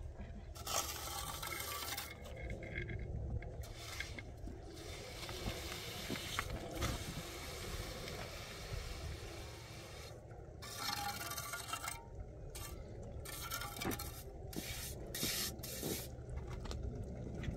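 Stones scraping and rubbing as rough rocks are packed and set by hand, in repeated rough scrapes with short breaks between them, over a steady low rumble.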